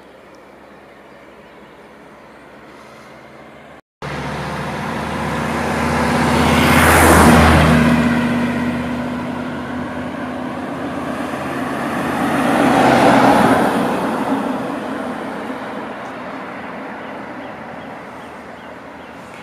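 Cars passing by on a road. After a few seconds of faint outdoor background that breaks off abruptly, two vehicles go past one after another, each swelling and fading away, the loudest about seven and thirteen seconds in.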